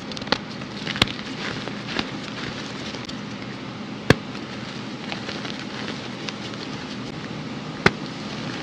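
Hands crushing and crumbling red-dyed reformed gym chalk blocks in a tub of loose chalk powder: a continuous dry crackle and crunch, with sharp snaps as pieces break, the loudest about four seconds in and again near the end.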